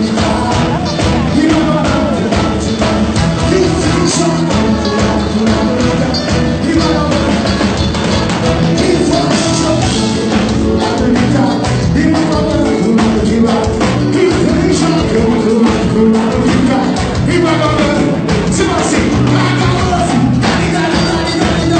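Sertanejo band playing live: a male lead singer over electric guitars and a steady beat, loud and continuous, as heard from the audience.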